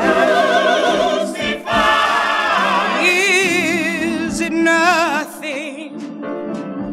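Gospel vocal group singing sustained notes in harmony with strong vibrato, from a 1962 studio recording; the voices ease off about five seconds in.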